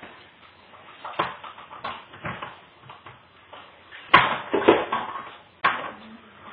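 A string of irregular knocks and thumps, about half a dozen, with a close cluster of the loudest ones a little past the middle.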